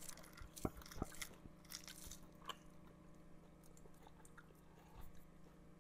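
Faint chewing and crunching of crispy fried surf perch eaten by hand, with scattered small crunches and clicks, most of them in the first couple of seconds.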